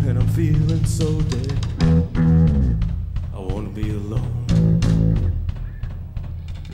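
Live rock band playing: electric guitar over a heavy held bass line, getting somewhat quieter near the end.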